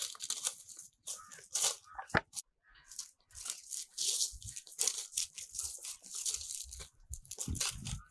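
Footsteps on dry grass and loose dirt, in uneven scuffs with a few dull thuds underfoot.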